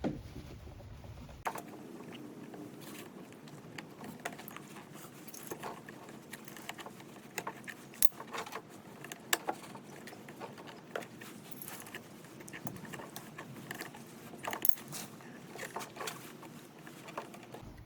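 Scattered light metallic clicks and clinks at an irregular pace: bolts, nuts and the replacement plastic blade being handled and worked into place on the snow blower's auger.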